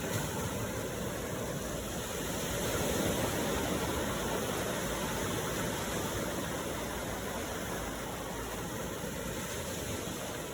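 Ocean waves washing on a shore: a steady rush of surf that swells a little about three seconds in.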